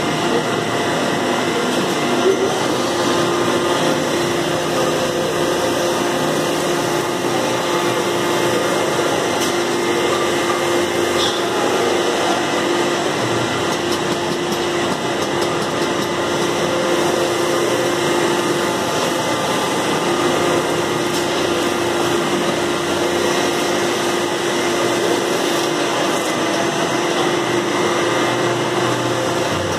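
Automatic sunray sanding machine running: an abrasive sanding head pressed against the inside of a spinning stainless steel kadai, giving a steady whirring, scouring noise with a constant underlying tone.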